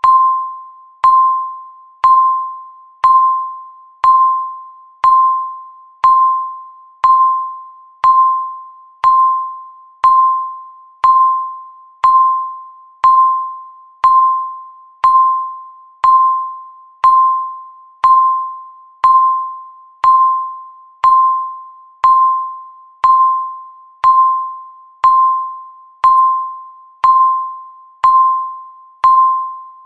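Countdown timer's tick: a short, high, bell-like ping once every second, each one dying away quickly, steady and unchanging throughout.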